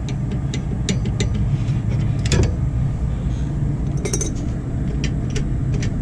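Irregular metallic clicks and clinks of wrenches working on the bolts of a rear brake caliper as they are tightened, with a sharper cluster about two seconds in and another near four seconds, over a steady low rumble.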